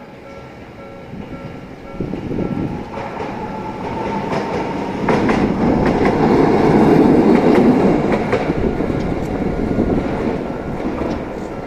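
A single-car Toden Arakawa Line tram passing over a level crossing: its running noise builds from about two seconds in and is loudest in the middle, with wheel clicks over the rail joints, then eases off.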